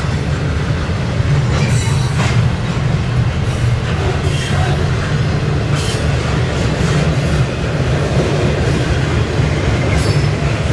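Double-stack intermodal well cars loaded with containers rolling past: a steady low rumble of steel wheels on rail, broken by a few sharp clanks.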